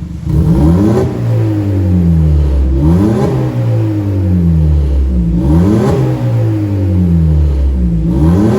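Audi Q3 1.4 TFSI turbocharged four-cylinder revved in four quick blips, about every two and a half seconds, each rising fast and falling back slowly to idle. Its exhaust valve is open (the sporty mode), venting through a downpipe and a high-flow muffler fitted in place of the intermediate one.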